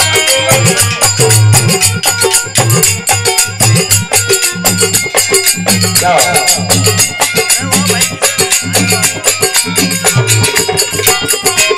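Rajasthani bhajan music with no singing: a dholak played in a quick, steady rhythm, its deep strokes to the front, with jingling hand percussion keeping time.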